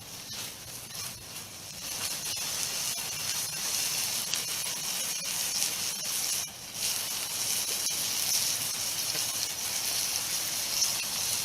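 Burger patty sizzling in a mess-kit frying pan over a fire: a steady frying hiss that grows louder about two seconds in and dips briefly about six and a half seconds in.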